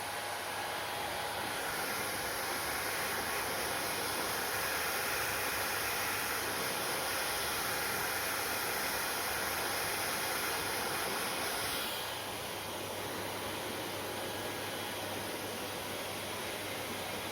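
Hair dryer blowing steadily, a continuous rushing hiss of air. It grows a little louder and brighter about a second and a half in, then drops back about twelve seconds in.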